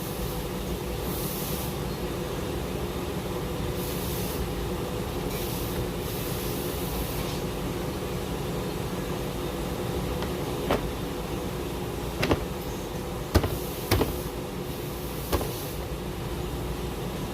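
A steady low mechanical hum, with about five sharp clicks and knocks in the second half.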